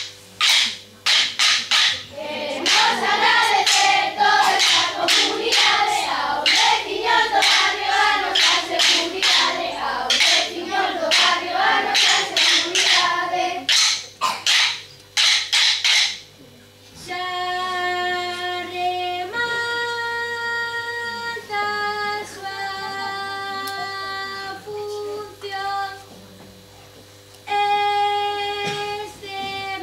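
Children singing a song together over sharp, rhythmic percussive strikes, two or three a second. After the singing ends, about halfway through, a simple melody of steady held notes follows on school recorders.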